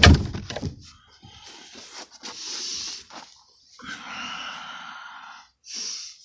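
Handling noise: a sharp knock, then stretches of rubbing and scraping.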